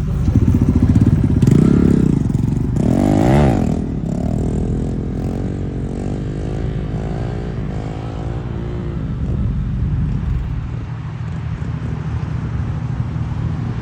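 Vehicle engines running, one revved: the pitch climbs and falls in the first two seconds, then a sharper rev about three seconds in, then an unsteady, wavering engine note that settles after about nine seconds.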